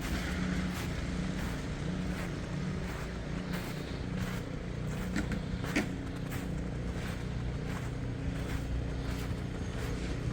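A motor vehicle's engine running steadily, with a low hum throughout and scattered short crunching knocks, one sharper about six seconds in.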